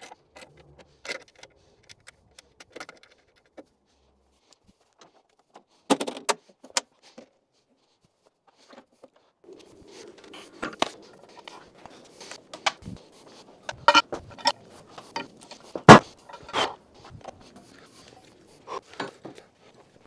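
Metallic clicks and clanks from working on a Wood-Mizer LX55 bandsaw mill with its engine off, as the band blade is changed. After about nine seconds come a run of knocks, scraping and clanks as a log is clamped and levered on the mill's steel bed, with one sharp knock louder than the rest a little past the middle.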